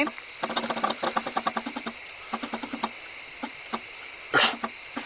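Night chorus of crickets: a steady, high-pitched pulsing trill, with one brief sharp sound about four and a half seconds in.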